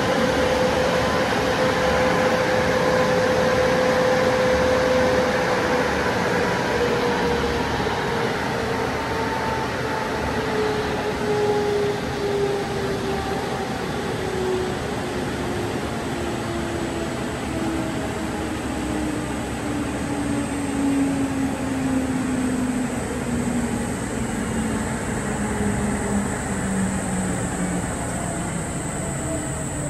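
Car wash dryer blowers on a WashBot Transformer 3XM in-bay automatic, a loud rush of air with a motor tone and a steady high whine. About five seconds in, the motor tone starts a long, slow fall in pitch as the blowers wind down at the end of the dry cycle.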